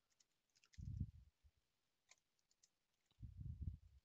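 Faint computer keyboard typing, scattered single key clicks. Two brief low, muffled swells of sound, about a second in and again near the end, are louder than the clicks.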